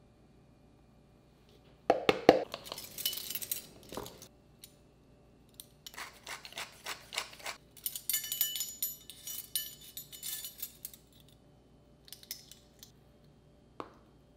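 Ring of metal measuring spoons jangling and clinking against each other as they are handled. There are two spells: a short one that opens with a sharp clack, and a longer one with a bright ringing jingle. A single light tap comes near the end.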